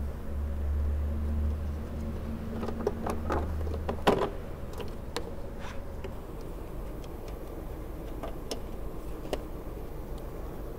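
Hands handling a car's plastic cowl panel and rubber hood seal: a scatter of clicks and knocks, the loudest about four seconds in, then fainter ticks, over a low hum that fades out soon after the loudest knock.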